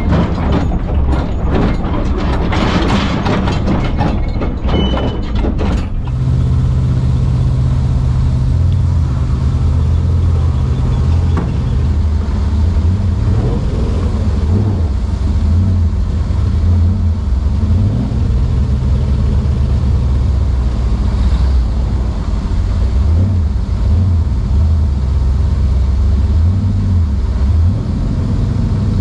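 Dodge M37 truck's engine running at low revs, a steady low drone as it crawls in four-wheel-drive low range in second gear. For the first six seconds or so a dense clatter of rattles and knocks lies over it, then the engine sound carries on alone.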